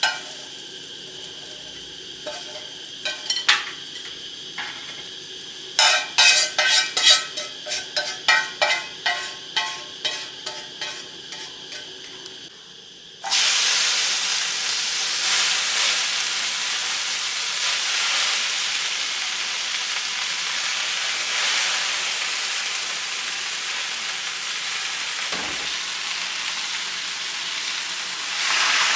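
Cooking sounds: sharp utensil clicks and taps, a quick run of them in the middle, then about halfway through a loud, steady sizzle of frying starts suddenly, as when food goes into hot oil.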